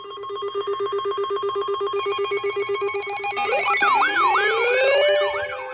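Several weather alert radio alarms sounding together for a severe thunderstorm warning: a fast-pulsing ringing tone, joined about two seconds in by higher steady tones and, from about three and a half seconds, by rising and falling siren-like sweeps.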